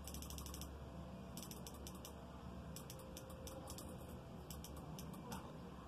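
Light, quick mechanical clicking in several short runs over a faint low hum, as the control on the pulse generator driving the bench-tested instrument cluster's speedometer and tachometer is turned up.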